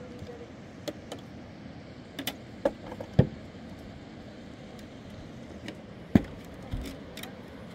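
A shovel striking stony earth: scattered knocks and thuds, the two loudest about three and six seconds in, over a steady background hiss.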